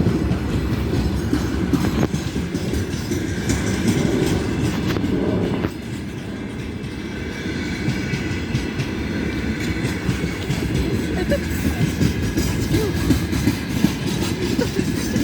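Loaded freight wagons of a train hauling tanks rolling past, with a continuous rumble and the wheels clattering over rail joints. The sound drops a little about six seconds in.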